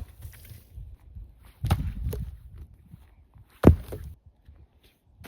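Dead branches and sticks knocking and clattering as they are carried and dropped on a pile: a short knock at the start, a longer clatter about two seconds in, and the loudest knock about three and a half seconds in.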